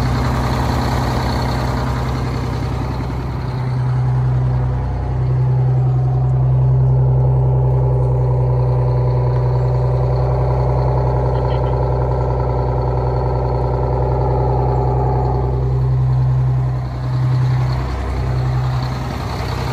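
Detroit Diesel engine of a 1989 Crown Super Coach bus idling steadily while still cold. Its level swells slightly a few seconds in and dips briefly near the end.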